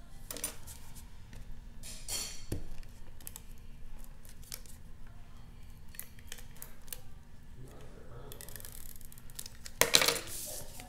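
Cardstock being handled on a desk: soft rustles, light taps and paper sliding as the folded card is pressed flat, with a louder brush of paper about ten seconds in.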